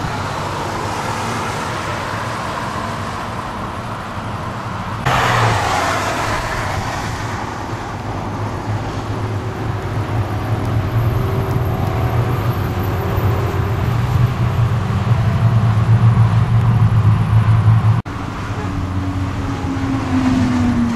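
Sports cars passing at motorway speed, with engine notes and tyre and wind roar. A sudden loud rush of noise comes about five seconds in. An engine note swells louder over several seconds and breaks off abruptly near the end, and then another engine passes with a slightly falling note.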